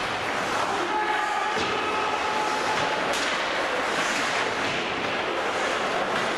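Ice hockey rink sound during play: skates on the ice, sticks and puck clacking in a few sharp knocks, and a voice calling out briefly about a second in, over steady arena noise.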